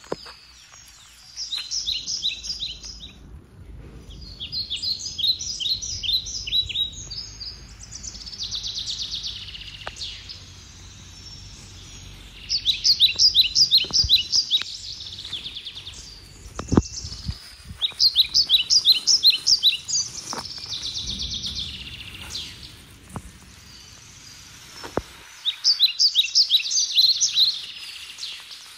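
Bird song: about five bursts of rapid, high chirps repeated in quick succession, each burst lasting a couple of seconds, with pauses between.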